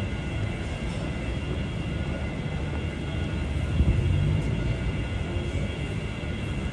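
City street ambience: a steady low rumble of traffic, with faint steady high-pitched tones running through it.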